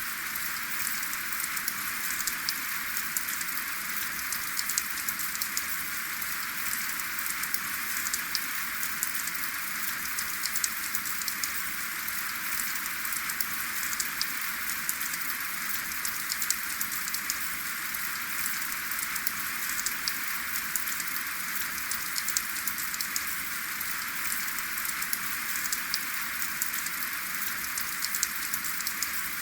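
Steady rain, with no thunder, falling as an even hiss with many sharp, scattered drop ticks.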